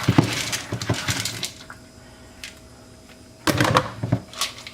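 Soaked beans being tipped into a plastic Tupperware microwave pressure cooker: a rush of many small clattering clicks for about a second and a half, then another short burst near the end.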